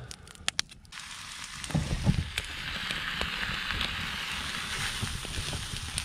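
Wood campfire crackling with a steady hiss that comes in about a second in, while an aluminum shovel with a quesadilla on it is held in the flames. A couple of dull knocks come near two seconds.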